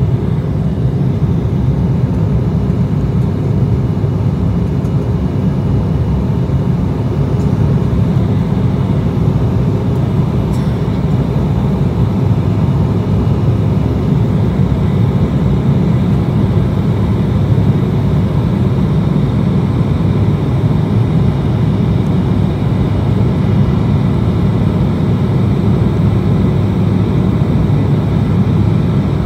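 Steady cabin drone of an Embraer E175LR climbing after takeoff, from its two GE CF34-8E turbofan engines, heard inside the cabin over the wing. A faint high whine sits above the low drone.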